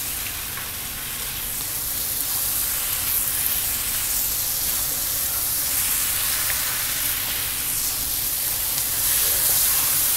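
Chopped tomatoes and onion-spice masala sizzling in a hot non-stick pan while a spatula stirs them: a steady frying hiss with light scraping and stirring noise.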